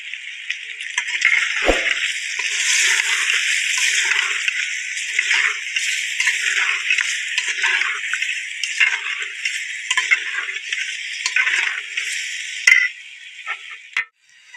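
Long metal slotted spoon stirring beef and potatoes in an aluminium pot, scraping and clinking against the pot in repeated strokes over a steady sizzle. The stirring stops near the end.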